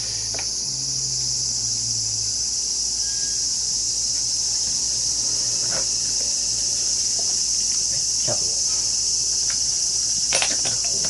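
A steady, high-pitched shrilling chorus of insects, with a few light clicks and taps from hand work on the motorcycle's carburettor, the loudest cluster near the end.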